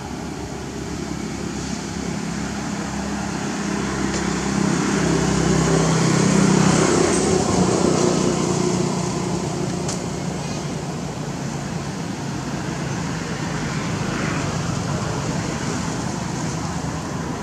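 Motor vehicle engine running, swelling louder a few seconds in and then easing back to a steady hum.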